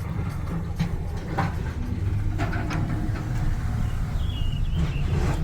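Road noise from inside a moving vehicle on a road under construction: a steady low rumble, with a few knocks and rattles from bumps and a short high squeak a little after four seconds.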